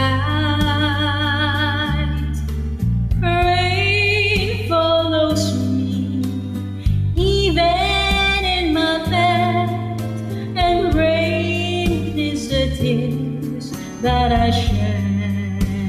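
A woman singing a slow love ballad over instrumental accompaniment, holding long notes with vibrato.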